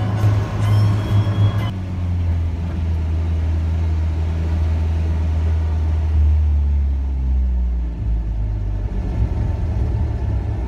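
A car's engine and road noise heard from inside the cabin as a steady low drone. The pitch falls between about six and eight seconds in as the car slows.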